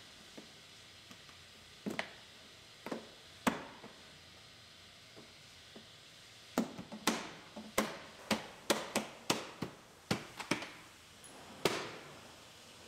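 Plastic clips of a 2013 Buick Enclave's wheel-opening molding snapping into the body as the molding is pressed on by hand: a few sharp clicks in the first seconds, then a quick run of about a dozen from about halfway.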